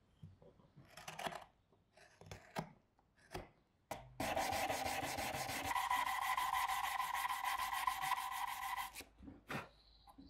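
A carving knife scraping wood in several short strokes, then an electric detail sander switched on about four seconds in, running steadily with a motor whine against the wooden handle for about five seconds before stopping.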